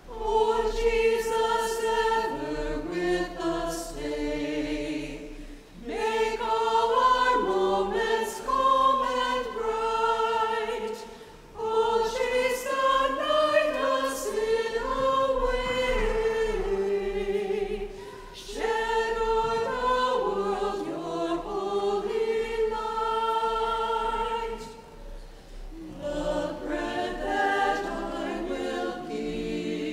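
A choir singing a hymn in long phrases, with short breaks between them.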